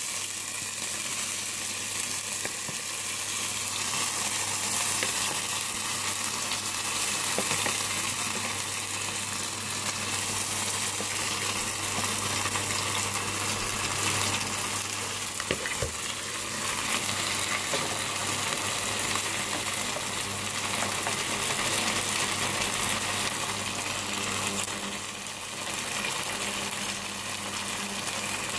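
Shellfish, shrimp and spring onions sizzling steadily in hot oil in a nonstick frying pan, just after the drained seafood went in. There is a single brief click about midway.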